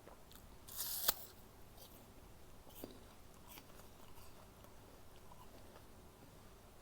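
A bite into a crisp apple with a loud crunch about a second in, followed by close-up chewing with scattered small crunches.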